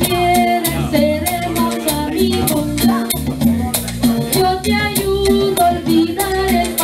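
A woman singing into a microphone over backing music with a steady bass beat and quick rhythmic percussion.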